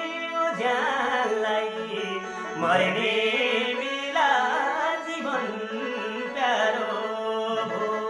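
Singing of a Nepali Teej folk song (tij bhaka) over a steady held drone, in four sung phrases that each rise at the start and fall away.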